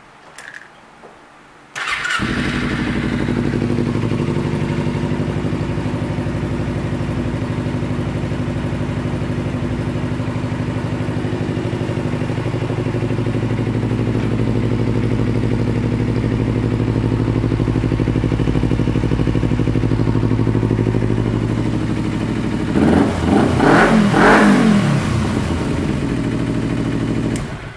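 2008 Kawasaki Ninja 250R's parallel-twin engine starting about two seconds in and idling steadily. Near the end it is revved several times in quick succession, drops back to idle, and is switched off.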